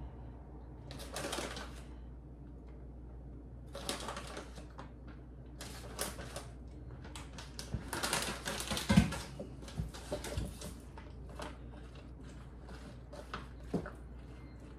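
Kitchen handling sounds while assembling a macaroni and cheese dish: scattered light clicks and ticks, several short bursts of rustling or scraping, and one louder knock about nine seconds in.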